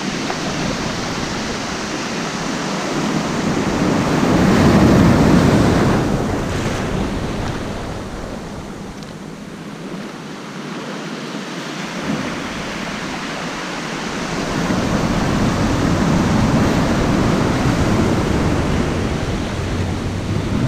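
Ocean surf breaking and washing up the beach in shallow water, swelling to its loudest about four to six seconds in, easing off, then building again near the end.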